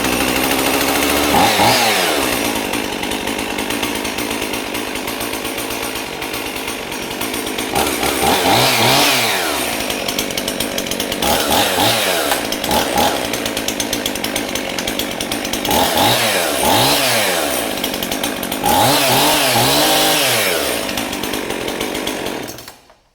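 Husqvarna 55 two-stroke chainsaw running on a cold start: idling with its throttle blipped several times, the engine revving up and dropping back each time, then shut off near the end.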